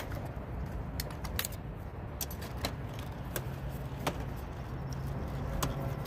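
Scattered light metallic clicks and rattles as a window air conditioner's run capacitor and its wire connectors are handled and pulled out of their sheet-metal bracket, over a low steady background rumble.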